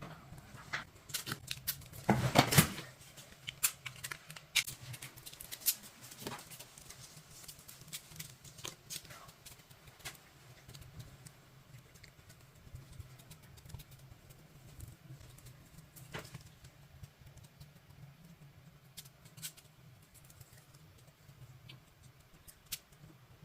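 Hands working craft materials: irregular small clicks and taps, with a louder crackling rustle lasting under a second about two seconds in, over a faint steady low hum.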